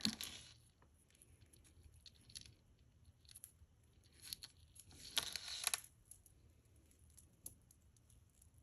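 Faint handling sounds of a tangled necklace being untangled and laid out: scattered light clicks and short rustles, with a louder rustle about five seconds in.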